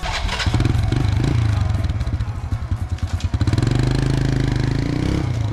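Small motorbike engine running as the bike pulls away, uneven at first and then steadier and louder from about three and a half seconds in.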